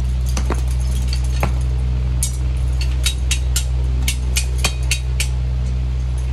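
Farrier's steel hand tools clinking against each other and against the metal tool cart as they are put away and picked out, with a quick run of sharp clinks in the middle. Under it runs a steady low hum.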